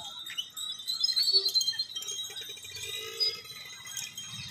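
Metal bells hanging on a walking temple elephant, jingling and ringing continuously.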